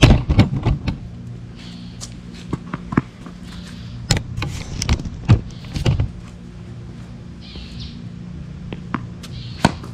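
Knocks and rustle of the camera being handled, then footsteps on a hard tennis court, with one sharp knock near the end, over a steady low outdoor hum.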